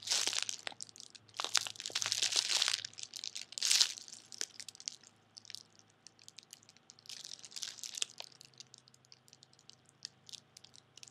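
Clear plastic packaging crinkling in several bursts as a squishy foam donut toy is squeezed through its bag, with quieter pauses between squeezes.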